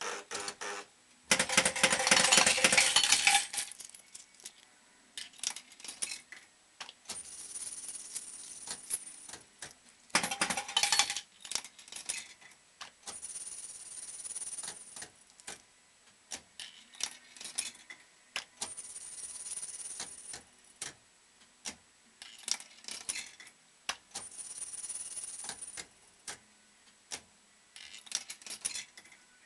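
Bell-Fruit Fore & Aft fruit machine working: a loud clattering rattle of coins for about two seconds near the start, another short clatter about ten seconds in, and scattered mechanical clicks and clunks throughout, with a brief high whine that comes back about every five or six seconds.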